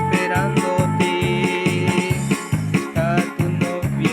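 Upbeat Christian praise music with keyboards over a steady beat, one high tone held through the first half.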